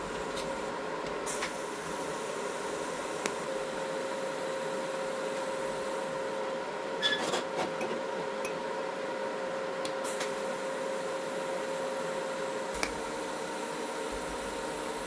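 An electric power tool motor running steadily at an even pitch, with a few light clicks and a short cluster of knocks about seven seconds in.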